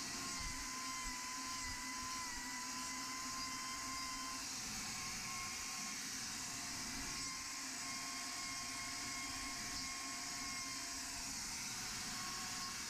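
Electric angle grinder fitted with a hoof-trimming wheel, running steadily with a constant high whine over a hiss.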